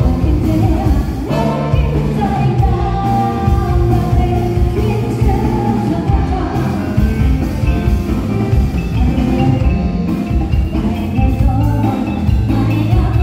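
Live band playing a song, with singing over it.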